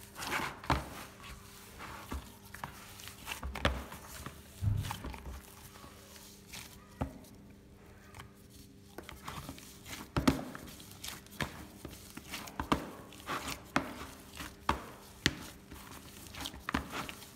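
Homemade play dough being kneaded by a gloved hand in a plastic bowl: irregular soft thuds and squishes as the dough is pressed and pushed against the bowl, with sharp clicks, easing off for a moment about halfway through.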